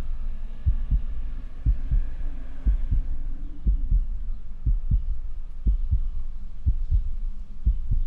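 Heartbeat sound effect: steady double thumps, lub-dub, about one beat a second. A faint drawn-out tone fades out over the first few seconds.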